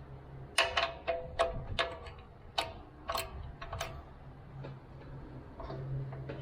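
About eight sharp metallic clinks and taps at an uneven pace, each with a brief ringing tone, during the first four seconds, then a few fainter clicks.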